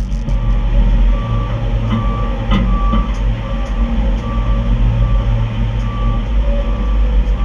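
A backup alarm beeping at an even rhythm, one pitch, from heavy equipment working close by, over the steady low rumble of diesel machinery running.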